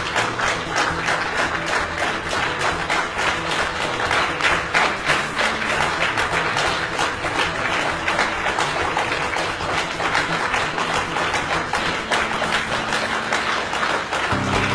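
Audience applauding: steady, dense clapping with no break.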